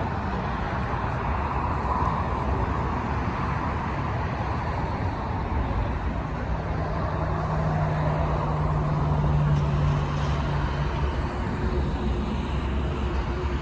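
Steady roar of jet engines and road traffic around the airport, with a low steady hum joining for about four seconds in the middle.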